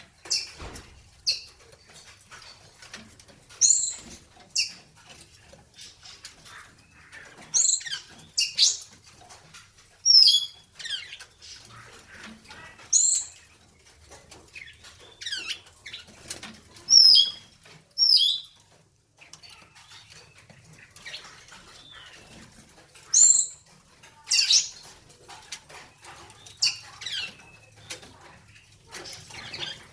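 Songbirds calling: short, sharp, high-pitched chirps and call notes with falling or wavering pitch, repeated irregularly about every second or two.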